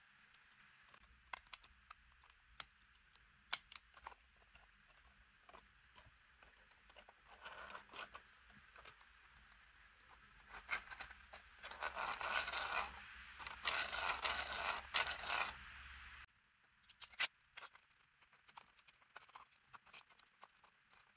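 3D-printed plastic engine parts handled and fitted together by hand: scattered light clicks and knocks, with a louder stretch of scraping and rubbing from about ten to sixteen seconds in.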